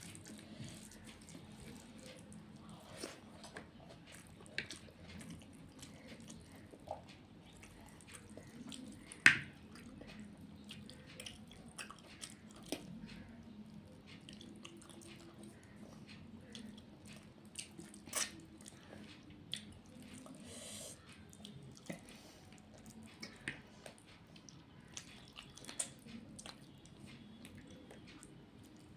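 A person eating rice and curry, with soft wet chewing and mouth sounds and many small scattered clicks and smacks. A sharp click stands out about nine seconds in, and a smaller one about eighteen seconds in.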